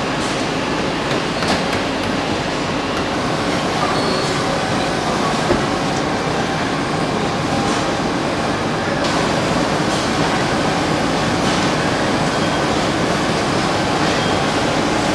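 Steady mechanical din of a car assembly plant floor, with a few small clicks and knocks and faint short high beeps now and then.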